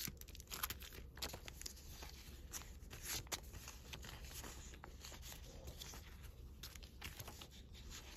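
Paper and plastic sticker sheets and packets rustling and crinkling as they are sorted by hand, a soft run of irregular crackles and rustles.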